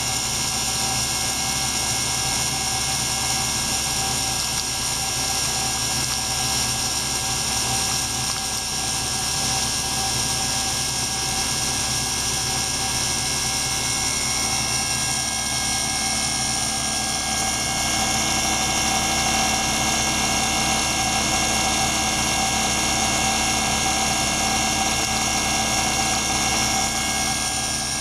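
Laboratory ultrasonic test rig running steadily: a continuous whirring hum with several held high tones, from the circulation pump feeding the water tank and the probes vibrating under a function generator's drive.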